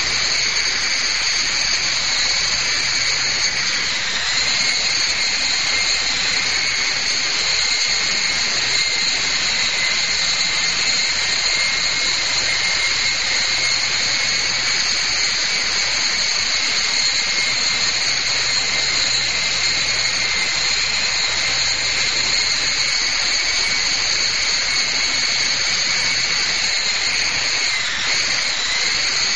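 Lama V3 electric radio-controlled helicopter in flight: its motors and rotors give a steady high whine, dipping briefly in pitch about four seconds in and again near the end as the throttle changes.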